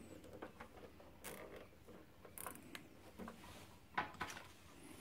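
Faint clicks and rustles of hands fastening a plastic zip tie around wiring inside a heater's sheet-metal housing, with a short ratcheting zip about two and a half seconds in as the tie is pulled tight.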